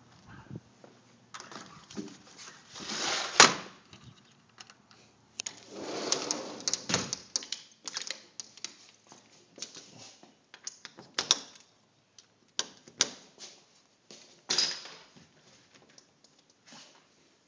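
Scattered clicks, taps and knocks, with brief rushes of noise about three, six and fourteen and a half seconds in: handling noise from a handheld camera being carried and turned about.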